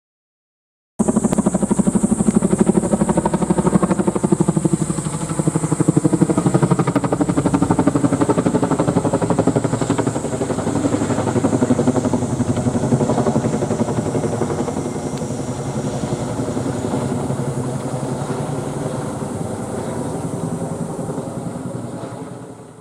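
CH-47 Chinook tandem-rotor helicopter flying overhead: a rapid, even beat from its rotor blades with a steady high whine above it. It starts abruptly about a second in and fades away near the end.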